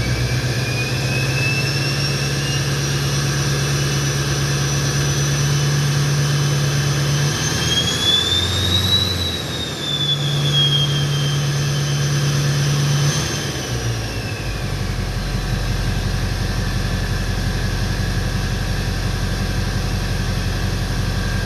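LBZ Duramax 6.6 L V8 turbodiesel with a 65 mm Danville Performance stage 2 turbo, through a 4-inch MBRP exhaust with a resonator and no muffler, running under throttle. The turbo whistle climbs steadily in pitch to a peak about nine seconds in, then winds back down. Past the middle the engine drops back to a steady idle as the whistle fades.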